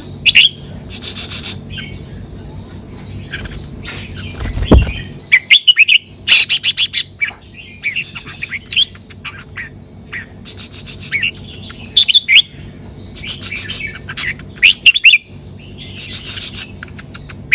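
Caged red-whiskered bulbul singing: short, quick whistled phrases mixed with fast rattling trills, repeated every second or two. A low bump sounds about five seconds in.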